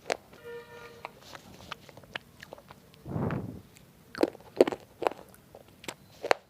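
Someone biting and chewing hard, dry pieces of roasted multani mitti (Fuller's earth): a run of sharp crunches, the loudest about four to five seconds in.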